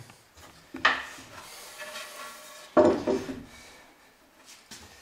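A wooden plank being set down and slid on a wooden workbench: two sharp knocks of wood on wood, the second and louder about three seconds in, with softer rubbing and scraping between.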